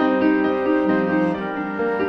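Background music led by piano, notes changing every fraction of a second.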